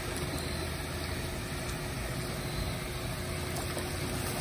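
Steady rush of turbulent water pouring out of a dam's gates, an even roar that holds level throughout.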